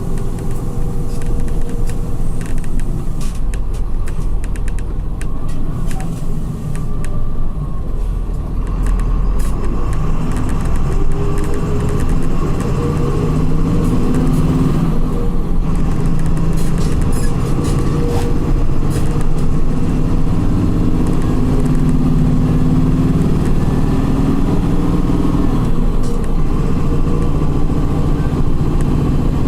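Volkswagen 17.230 EOD coach's diesel engine and ZF gearbox running under way, heard from the driver's seat. The engine pulls harder and gets louder about eight seconds in, then runs on steadily with its pitch rising and falling.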